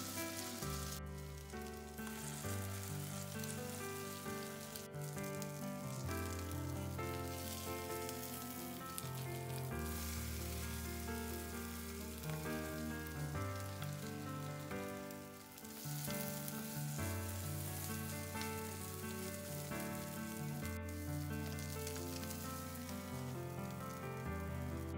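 Corned beef and egg patties sizzling as they fry in oil in a nonstick pan, under background music with a bass line that changes every couple of seconds.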